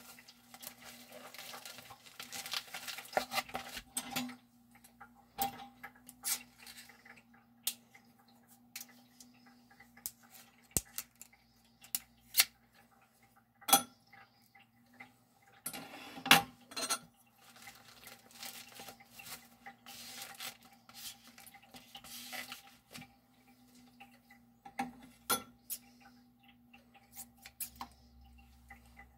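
Metal kitchen utensils, a knife and tongs, clinking and knocking against a glass saucepan and the cooktop. The clicks and clatters come in scattered, uneven bursts, with the loudest cluster about sixteen seconds in, over a faint steady hum.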